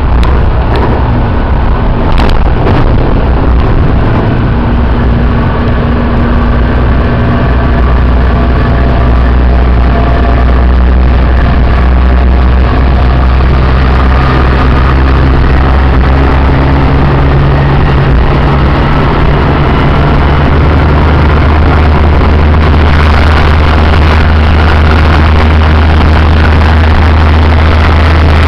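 Light-rail train running along the track, heard from inside the front cab: a loud, steady rumble with a low hum and faint motor tones.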